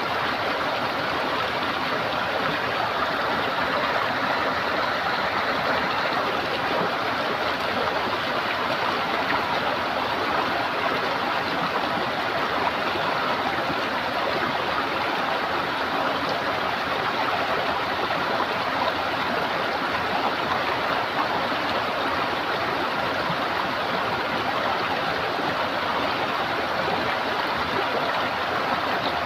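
Running water gurgling steadily, an even rushing of a small stream that does not change.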